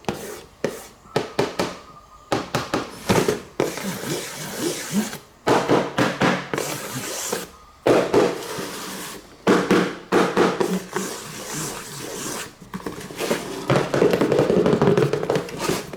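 Toy packaging being handled and opened at close range: irregular crackling and rustling of plastic and cardboard, broken by sharp clicks and taps, busier near the end.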